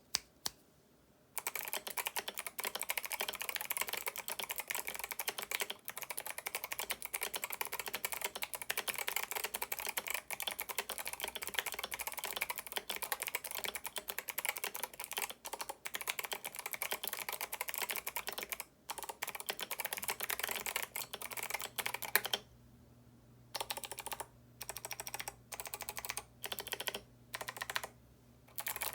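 Typing on a mechanical keyboard with clicky Kailh Box White switches, MT3 keycaps and an aluminium case: a fast, unbroken run of key clicks for about twenty seconds, then short bursts of keystrokes with brief pauses near the end.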